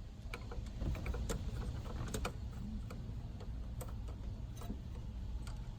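Faint, irregular small clicks and scrapes of a screwdriver working a screw loose.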